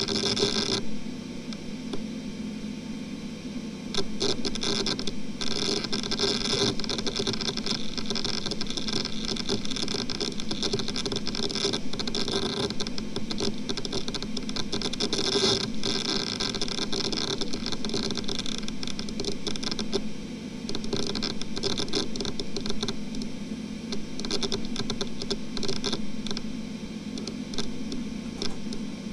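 Western Digital XE WD3001BKHG, a 2.5-inch 10,000 rpm enterprise hard drive, spinning with a steady hum while its heads seek in rapid, irregular ticking and crackling as the operating system loads from it. The seeking eases off briefly near the start and again about two-thirds of the way in.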